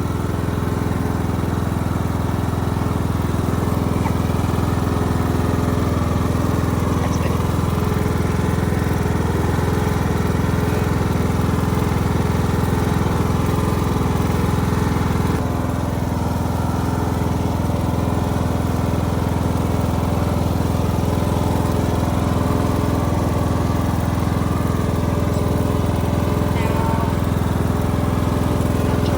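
Husqvarna 19 K ride-on lawnmower engine running steadily, its level dipping slightly about halfway through.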